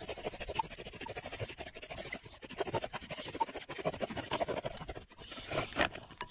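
Bow drill in use: the wooden spindle grinding in the notched hearth board as the bow is sawn rapidly back and forth, a fast, dense scratching with a few louder strokes about five seconds in. The friction is charring the hearth board into hot, sooty black dust.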